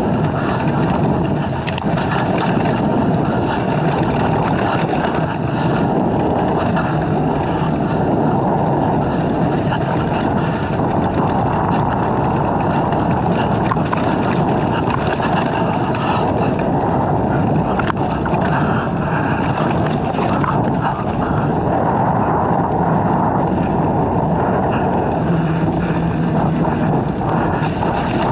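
Dirt bike engine running steadily as the bike is ridden, with wind buffeting the action camera's microphone.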